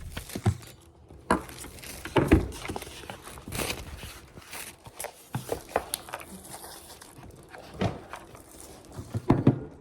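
Scattered, irregular knocks and clicks of handling noise, the loudest a little over two seconds in and again near the end.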